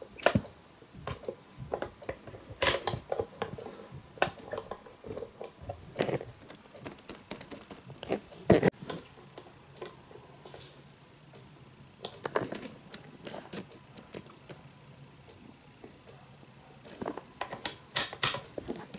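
Scattered small clicks and taps of an N-gauge model train car's plastic parts and its power controller being handled, with a few sharper knocks among them.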